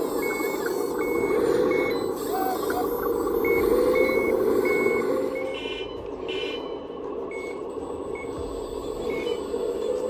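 Reversing beeper of an RC scale construction machine, repeated short beeps at one pitch, close together in the first half and sparser later, over a steady machine running sound.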